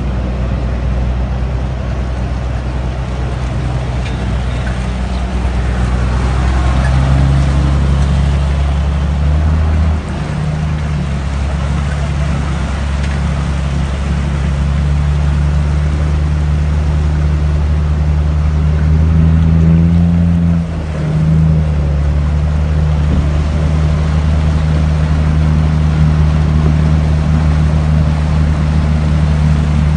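A motor vehicle engine running steadily at low revs, its note shifting briefly about ten seconds in and again around twenty seconds. Under it is the noisy rush of floodwater.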